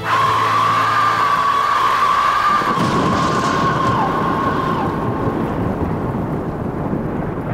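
Heavy rain and rolling thunder, with a loud long high tone over them that slowly fades. The thunder rumble swells from about three seconds in.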